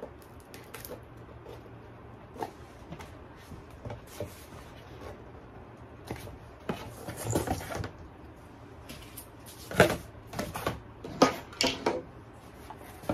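Foam-board box being handled and set down on a cutting mat: scattered light knocks and scrapes, the sharpest few knocks in the last few seconds.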